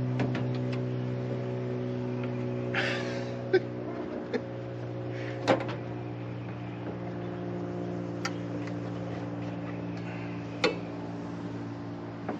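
A vehicle engine idling with a steady hum, with sharp clicks and knocks from things being handled and set in place about five times, the loudest about five and a half seconds in.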